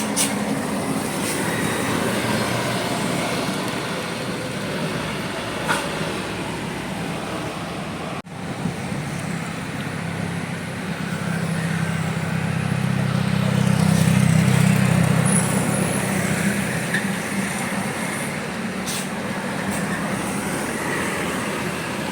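Road traffic with a heavy vehicle's engine passing close, its drone swelling to its loudest about halfway through and then fading. The sound breaks off abruptly for an instant about a third of the way in.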